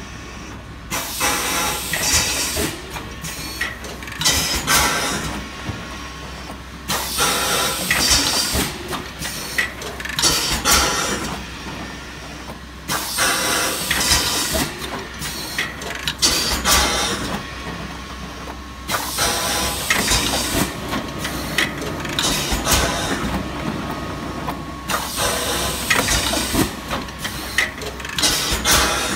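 Wide-mouth plastic jar blow molding machine running, with loud hissing spells of compressed air starting about every six seconds, one per cycle, over a steady machine hum and scattered clicks.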